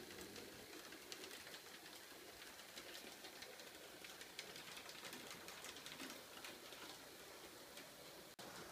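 Faint running sound of H0-scale model diesel locomotives: a small electric motor whirring, with the wheels clicking and ticking over the rails. The sound drops out for an instant near the end.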